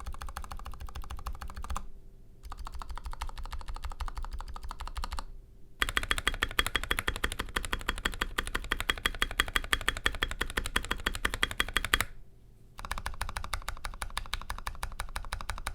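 Fast typing on an NK65 Entry Edition mechanical keyboard fitted with C3Equalz x TKC Dragonfruit tactile switches and Enjoy PBT Kon Momo PBT keycaps. The keystrokes come in four runs with short breaks between them, the third run the loudest. The builder calls the sound pretty satisfying and notes the spacebar sounds like a blacksmith hammering at metal.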